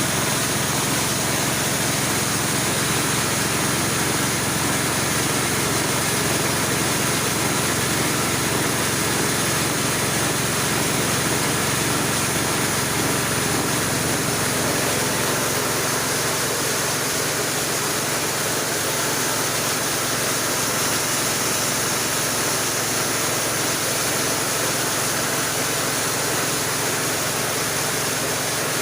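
Home-built corn grinding mill running steadily: a continuous machine sound of low hum under dense hiss. The lowest part of the hum eases off about halfway through.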